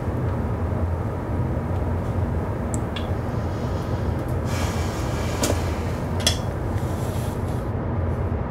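Steady low rumble of a passenger ferry's engines, heard from inside the ship, with a few faint small clicks over it.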